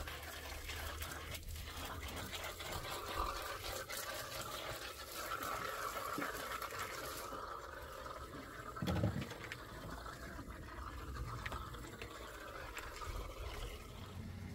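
Water running from a garden hose and splashing into a shallow pool in a cement-plastered block basin; the splashing softens about seven seconds in. A dull thump about nine seconds in.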